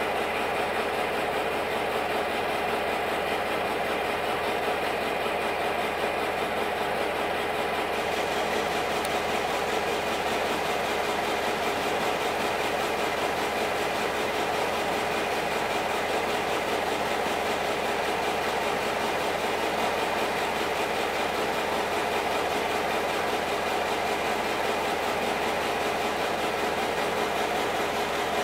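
A train's engine idling, a constant even hum that does not change.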